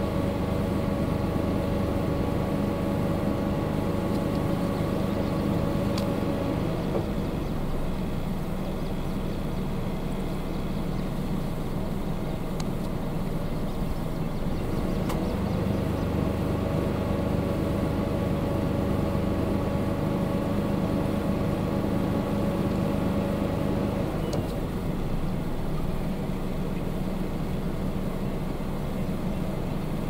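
Steady engine noise: a low rumble with a droning hum on top that cuts out about seven seconds in, comes back about halfway through and stops again a few seconds before the end.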